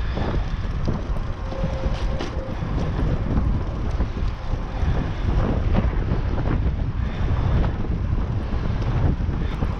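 Strong wind buffeting the microphone on a moving bicycle: a loud, uneven, gusting rumble.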